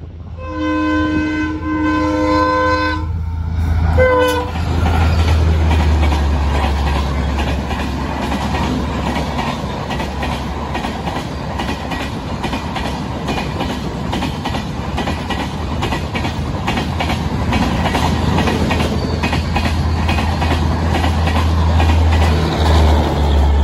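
The 12260 Bikaner–Sealdah Duronto Express sounds its multi-tone horn in two blasts, then a short toot about four seconds in, as it passes close by. Its coaches then roll past with a steady rumble and a rhythmic clickety-clack of wheels over rail joints.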